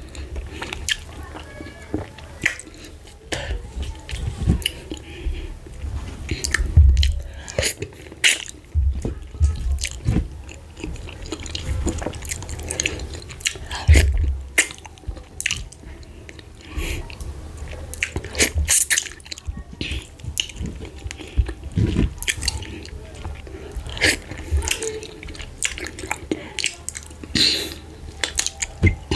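Close-miked eating: wet chewing, smacking and slurping of fufu with slimy ogbono soup, irregular sharp mouth clicks with occasional low thuds.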